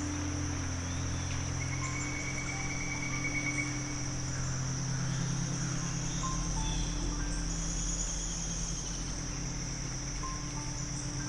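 Soft ambient music of sustained low notes, shifting slowly, under a steady chorus of crickets. A brief trill sounds about two seconds in, and a few faint chirps are scattered through.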